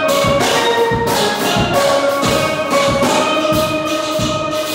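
Steel band playing a tune on steel pans: many ringing pan notes over a steady beat of about two strokes a second.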